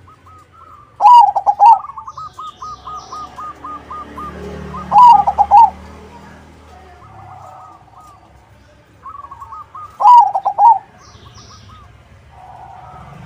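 Perkutut (zebra dove) of the crossing type singing its rippling coo phrase three times, about four seconds apart, with softer quick repeated notes and faint high chirps between the phrases.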